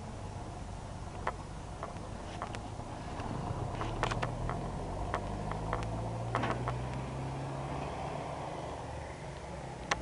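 Faint low engine hum with scattered light clicks and knocks, and one sharper click near the end.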